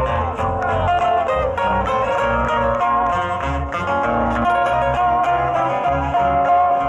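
Live Ecuadorian folk music: two acoustic guitars plucking a melody and chords over a pulsing bass line, with an accordion holding notes.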